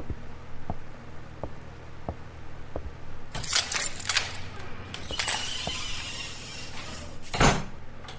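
Footsteps walking away in an audio-drama sound effect, about one step every 0.7 s, then a clattering rattle as a door opens. A heavy door thud follows near the end.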